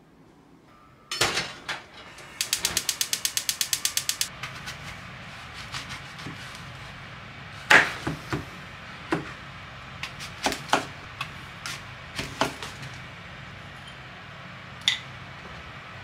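A knock about a second in, then a gas hob's igniter clicking rapidly, about nine clicks a second for two seconds, until the burner catches and a low, steady flame hum runs on. Over it, a kitchen knife cutting an apple, with a series of sharp knocks on the cutting board.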